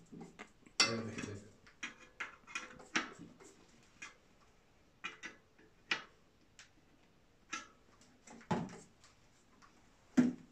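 Irregular metallic clicks, taps and clinks as a hand handles a small tool or part at a bicycle's rear wheel. The louder knocks come about a second in and near the end.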